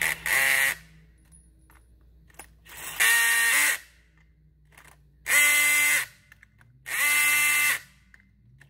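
Handheld cordless power driver run in four short bursts of about a second each, winding down at the end of each, as it tightens the nuts on the bolts of a cushion grip suspension clamp in turn.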